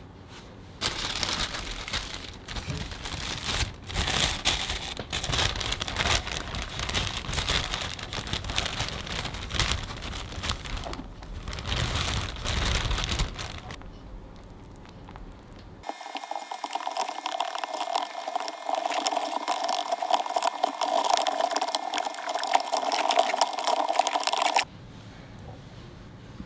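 Plastic bag crinkling as alginate impression powder is poured from it into a clear plastic tub, for about thirteen seconds. After a short lull, a spatula stirs the alginate in the plastic tub, a busy scraping that lasts about nine seconds and cuts off suddenly.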